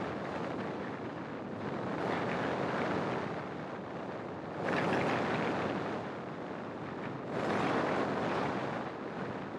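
Wind rushing over the microphone of a camera mounted outside a moving car, mixed with road noise. It rises and falls, swelling louder three times.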